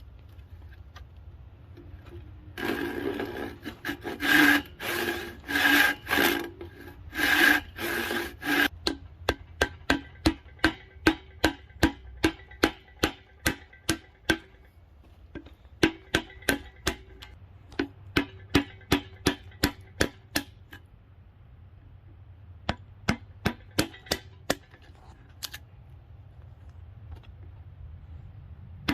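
Handsaw cutting into a hickory handle blank, several loud back-and-forth strokes about a second each, followed by a long run of sharp taps about two a second as a woodworking chisel is struck to clear wood between the relief cuts, with a short pause partway through.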